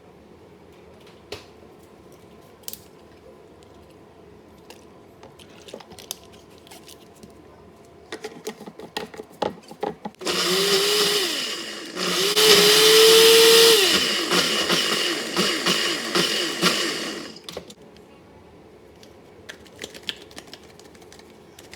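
Ninja personal blender motor running in two bursts, a short one about ten seconds in and then a louder one of about five seconds, its pitch rising as it spins up while chopping frozen mango, strawberry and pineapple. The fruit is still frozen, so the blend is slow to come smooth. Light clicks and knocks of handling the cup come before and after.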